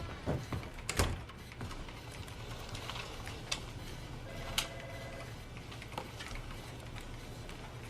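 Scattered small clicks and knocks over a steady low hum, with a short steady beep a little past four seconds in.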